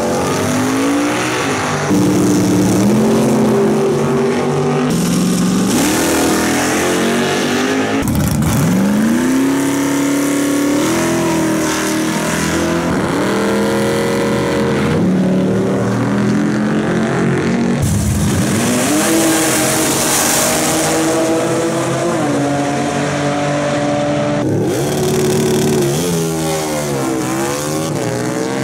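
Drag-racing car engines revving and accelerating hard down the strip, heard in a string of short clips. The engine pitch climbs, levels off and climbs again as the cars change gear.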